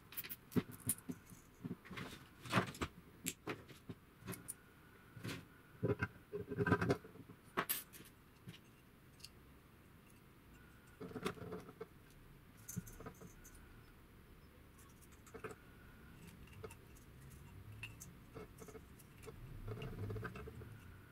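Parts of a vacuum cleaner motor being handled and fitted back together by hand: scattered clicks, taps and light rattles from the brush holder, wires and motor housing, busiest in the first eight seconds or so and sparser after.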